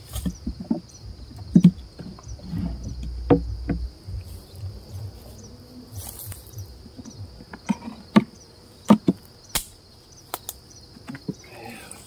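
Wooden beehive frames and box being handled, giving a series of sharp knocks and clicks, over the steady high chirring of crickets in the grass.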